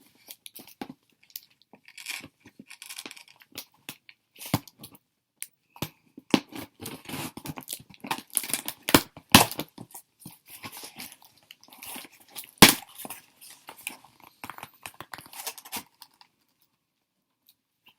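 Packing tape being torn and a taped shipping package being pulled open by hand: irregular tearing and crinkling with sharp clicks and knocks, the sharpest about twelve to thirteen seconds in. It stops about two seconds before the end.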